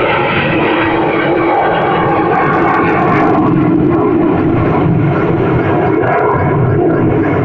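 Loud, steady jet roar from a low-flying formation of military fighter jets passing overhead.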